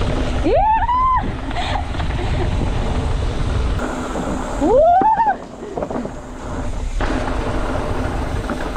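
Mountain bike descending a trail, with wind buffeting the microphone and tyre rumble throughout. Twice a rider lets out a rising whoop, about half a second in and again near the middle.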